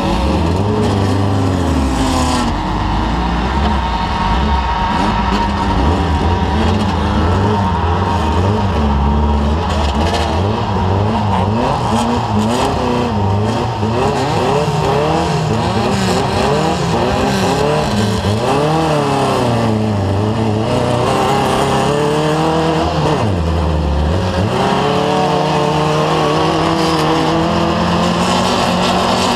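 Off-road race vehicle's engine running hard, its revs rising and falling over and over as it accelerates and backs off.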